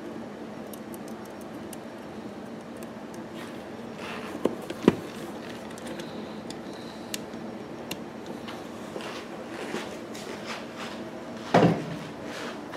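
Small clicks and knocks of a toggle switch and its nut being handled at a generator's metal control panel over a steady low hum, with a louder thump about a second before the end.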